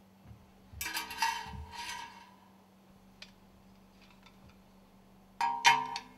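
Steel stuffing box parts clinking and clattering against each other and the steel work table as they are handled and set down: two bouts of clatter with a short metallic ring, about a second in and again near the end.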